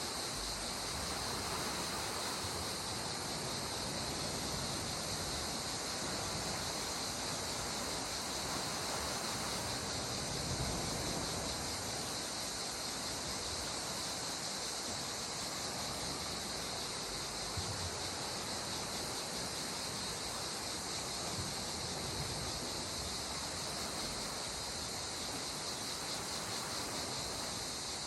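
A steady, high insect chorus over a soft, continuous wash of calm sea water, with small swells of water sound about ten and eighteen seconds in.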